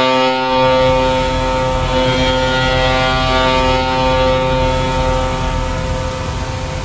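The Toronto Blue Jays' 2020 home run horn sounding one long, steady blast, with a low rumble joining about half a second in. The horn eases off slightly near the end.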